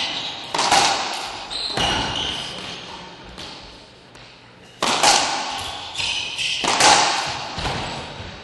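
Racquetball rally: the hollow rubber ball cracks off racquets and the court walls every second or two, each hit ringing out in the court's echo. Short high squeaks of court shoes on the hardwood floor come between the hits.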